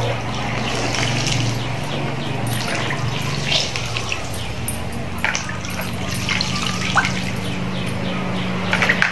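Water sloshing and dripping as handfuls of sliced taro stems are lifted out of a plastic basin of rinse water, with small irregular splashes throughout, over a steady low hum.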